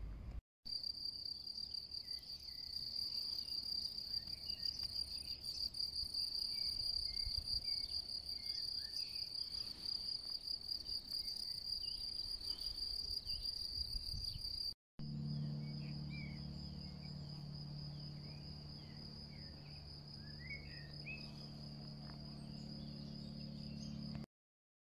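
Crickets singing steadily at a high pitch, with scattered short bird calls. The recording cuts out briefly twice, and after the second cut a low steady hum runs under the crickets until the sound stops just before the end.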